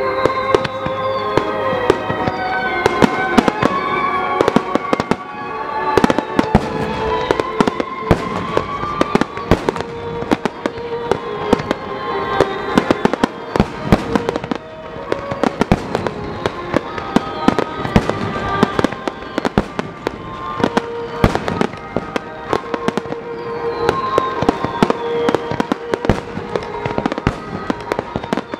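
A fireworks display going off continuously: aerial shells and underwater fireworks bursting and crackling in rapid succession, with repeated falling whistles, over music playing throughout.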